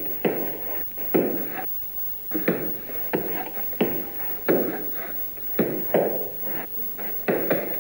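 An axe chopping into the base of a standing pine trunk during felling: a dozen or so sharp blows at an uneven pace, roughly one to two a second.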